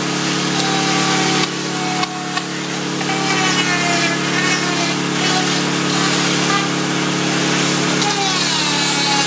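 Paint Shaver Pro stripping paint from wooden clapboard siding, its tungsten carbide cutter head shaving through the old paint while its HEPA dust-extraction vacuum runs. The sound is a steady motor hum, with a whine above it that rises and falls in pitch.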